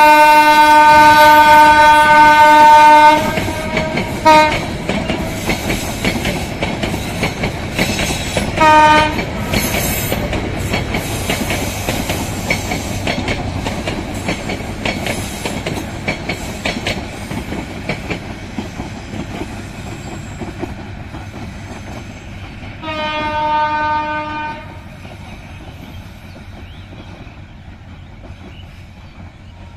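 A diesel locomotive's horn on a passing intercity train: a long blast of about three seconds, short toots near 4 and 9 seconds, and another blast of about a second and a half near 23 seconds. Under the horn, the coaches' wheels clickety-clack over the rail joints, fading as the train draws away.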